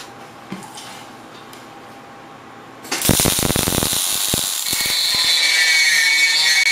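About three seconds in, a MIG welding arc laying silicon bronze wire starts up with a loud crackle. About a second and a half later, the steady high whine of a router spinning and cutting the bronze cladding takes over. Before the arc strikes there is only quiet shop background with a few faint clicks.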